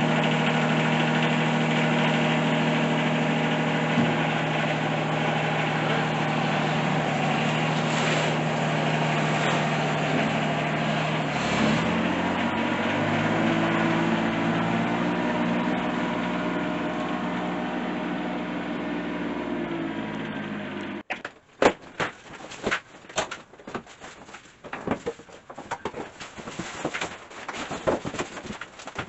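An engine running steadily, its pitch dropping a step about halfway through. It cuts off abruptly about two-thirds of the way in, and scattered clicks and knocks follow.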